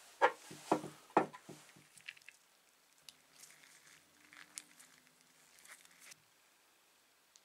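Small brass blowtorch parts clicking and clinking as they are picked up off a mat and handled: three sharp clicks in the first second or so, then lighter scattered ticks as the parts are fitted together by hand.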